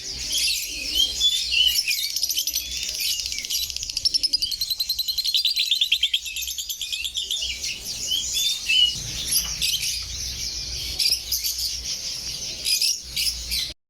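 Many small caged songbirds chirping and twittering together, with a fast trill about four seconds in.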